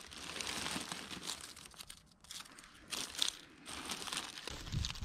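Clear plastic bag crinkling and rustling as it is handled and worked open by hand, with a brief lull about two seconds in.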